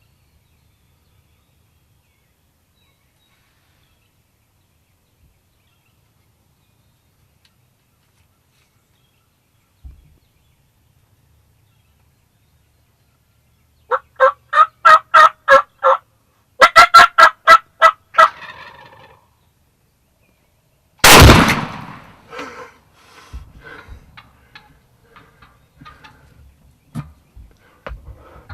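Two rapid rattling series of wild turkey calls, the second faster, followed after a short pause by a single loud blast from a Mossberg 835 12-gauge pump shotgun that fades over about a second. Faint scattered rustles follow.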